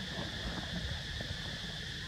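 Wind rumbling on the microphone, under a steady high-pitched hum.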